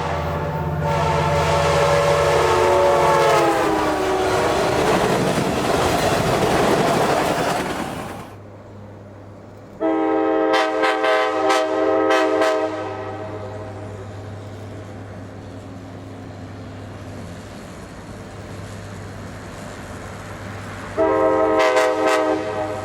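Nathan K5LA five-chime locomotive horn blowing as a train passes, its chord falling in pitch, followed by the rumble and clatter of the passing train. Then a second horn sounds a long blast, a low steady locomotive engine hum follows, and a short horn blast comes near the end.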